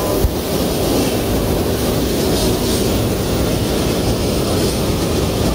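Light-rail train of Manila's LRT Line 1 pulling into the station along the far track: a steady, loud rumble of wheels on rails, with a single click about a quarter second in.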